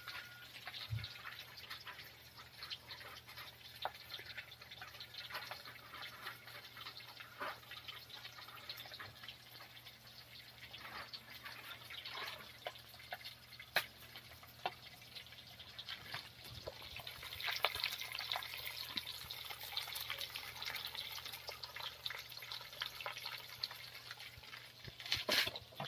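Food frying in hot oil in a wok over a wood fire: steady sizzling dotted with frequent small pops and crackles. The sizzle swells about two-thirds of the way through, and a few louder pops come near the end.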